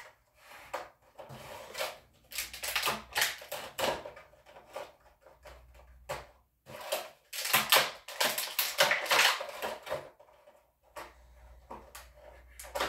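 Clear plastic blister packaging crackling and clicking in irregular bursts as a small die-cast toy car is worked out of its tray, loudest past the middle.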